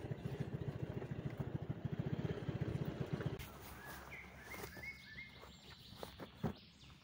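A motorcycle engine running with a steady, rapid low pulsing as the bike rides slowly over stony ground, cutting off about three seconds in. After it, a few short bird chirps and the rustle of a black plastic bag being handled, with one thump near the end.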